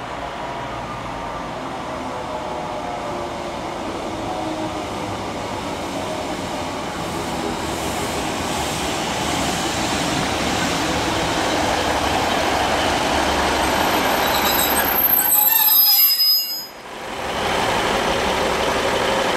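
Northern Rail diesel multiple unit approaching and drawing into a station platform, its engine and wheel noise growing steadily louder. A high brake squeal comes in near the end as it slows to a stop, followed by a brief sharp dip in the sound.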